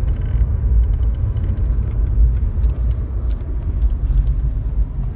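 Steady low road and engine rumble inside a Volkswagen Cross Up TSI driving in fourth gear, with a few faint ticks over it.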